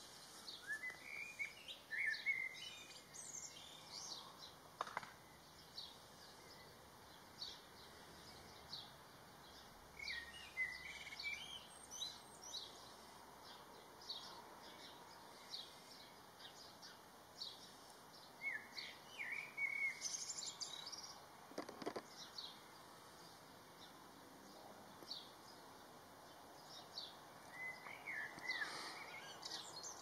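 Small songbirds chirping, with a short warbled phrase of song repeating about every eight or nine seconds.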